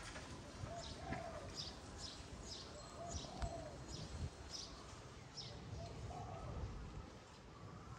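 Small birds chirping, short high chirps about twice a second, with a dove cooing softly every two to three seconds.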